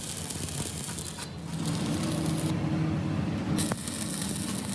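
Factory machinery noise: a steady low hum, with a loud hiss that cuts in at the start, stops about a second in, and returns near the end.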